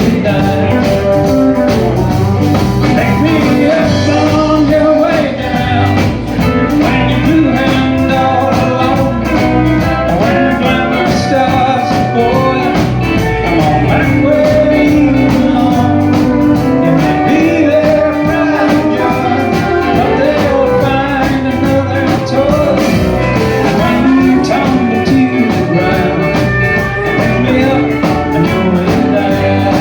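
Live country band playing loudly, guitars over a steady drum beat.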